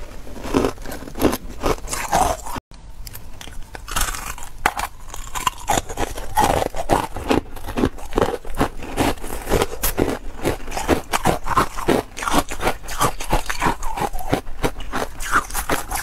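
Ice being bitten and chewed close to the microphone: a dense, continuous run of sharp crunches, with a brief total dropout about two and a half seconds in.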